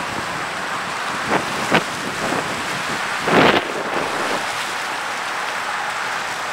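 Steady rush of water churning through the hurricane barrier's gates, mixed with wind noise on the microphone. A couple of short knocks come about a second in, and a louder burst of noise follows about three and a half seconds in.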